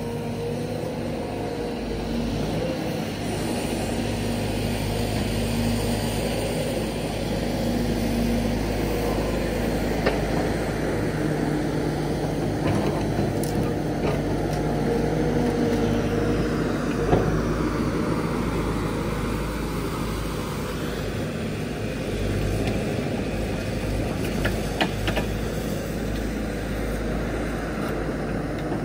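Crawler excavator's diesel engine and hydraulic pump running steadily under load as the machine digs and pulls at the ground, with a few short knocks along the way.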